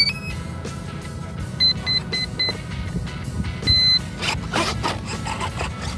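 Startup beeps of a 50A brushless ESC, sounded through the 3536 1000kv motor just after the battery is connected: a short rising tone at the start, four short even beeps about one and a half seconds in, and a single longer beep near four seconds. On common ESCs the run of short beeps counts the battery's cells, here a 4S pack, and the long beep signals that the ESC has armed. Background music plays underneath.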